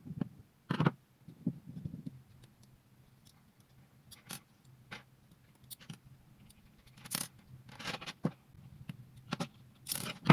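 Scattered light clicks and scrapes of small plastic and metal parts as an electric ducted fan unit is taken apart by hand, a dozen or so irregular taps with quiet gaps between.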